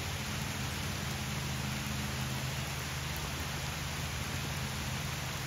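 Heavy rain falling on a river's surface and the bankside leaves, a steady, even hiss with a low steady hum beneath it.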